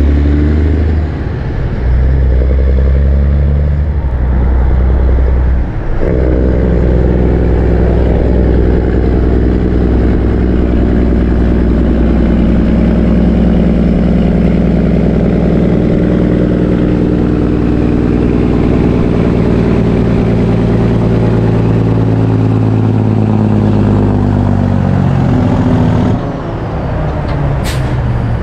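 Heavy diesel truck engine running hard under load. Its note dips briefly twice in the first six seconds, then holds a long steady pull for about twenty seconds before falling away near the end. A short sharp high-pitched sound comes just after.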